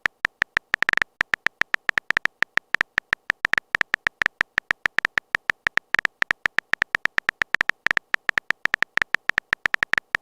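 Phone keyboard typing clicks: a fast, slightly uneven run of short taps, several a second.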